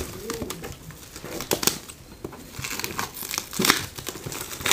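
Clear plastic shrink wrap crinkling as it is cut and pulled off a cardboard box: irregular crackles, the loudest about one and a half seconds in and again later on.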